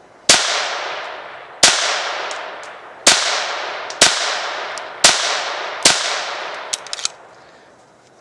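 Ruger Mark III .22 pistol fired six times at an uneven pace, roughly a second apart, each shot ringing out and fading over about a second. A quick cluster of faint clicks follows the last shot.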